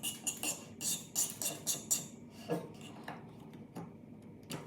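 Scraping tool scraping and prying a cured resin 3D print off a Form 2 build plate, in quick, forceful strokes. The strokes come close together for the first two seconds, then more sparsely, with a sharp click near the end.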